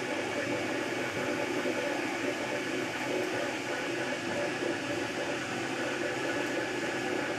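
MakerBot Replicator 2 3D printer running mid-print: a steady fan hiss with the stepper motors humming as the extruder moves over the bracelet layer.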